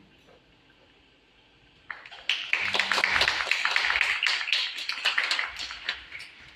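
After a near-silent pause, audience applause breaks out about two seconds in as many hands clap at once, then thins out near the end.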